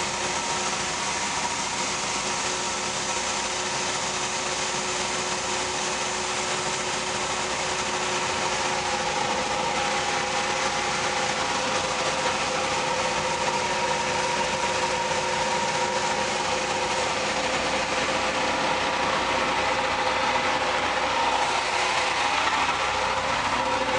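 John Deere 3300 combine running steadily while its unloading auger empties the soybean hopper, a continuous engine-and-machinery drone with a steady whine.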